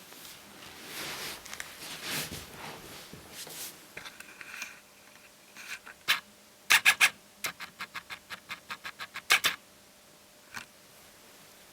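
Hands working on a laptop's parts: rubbing and scraping, then a quick run of sharp clicks, about six a second, with a few louder clicks around it.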